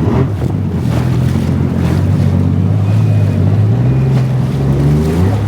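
Jet ski engine running at low throttle. Its pitch rises a little about four seconds in and drops back near the end, with wind on the microphone.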